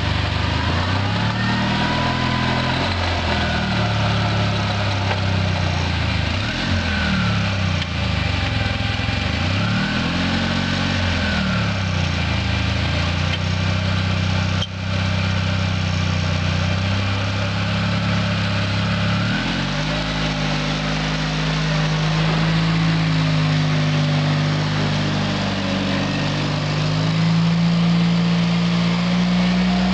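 Oka car engine, a small two-cylinder, running a homemade tractor, its pitch sagging and recovering again and again as it labours under load, with a brief break about halfway. From about two-thirds through it runs steadier and a little higher.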